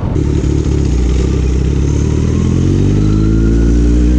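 Kawasaki Z900's inline-four engine pulling steadily under the rider, its revs climbing slowly.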